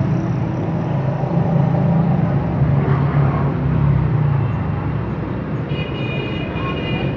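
Small engine of a Chinese-made mini wheat reaper running steadily, with a high steady tone joining near the end.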